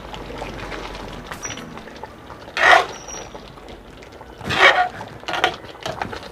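Metal spoon stirring a thick tomato-sauce pork stew in a pan, with two louder strokes of the spoon about two seconds apart near the middle and a few softer ones after.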